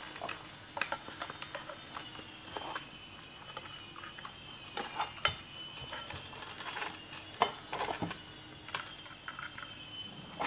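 Light metallic clinks, clicks and knocks of a steel guide bracket and its rod being handled and fitted onto a Royce power tool, scattered irregularly.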